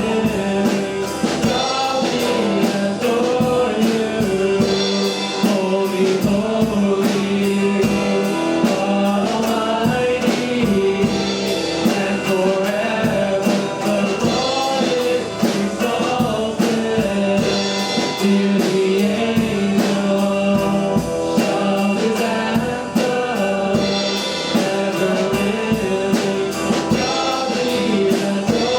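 Church worship band playing a praise song, with drums keeping a steady beat and voices singing along.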